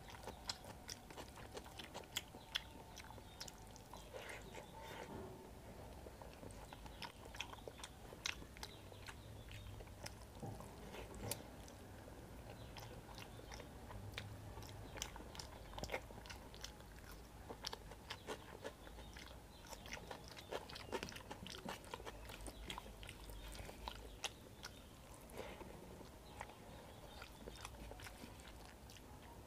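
Quiet eating by hand: wet chewing and mouth clicks as rice mixed with dal is eaten, with fingers squishing and scraping the rice across a steel plate. Many short, irregular clicks throughout.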